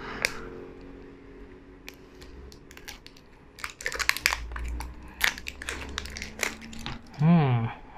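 Plastic tamper band being picked at and torn off a sauce bottle's cap by hand: crinkling and a run of sharp crackles and clicks, sparse at first and denser through the middle and later part.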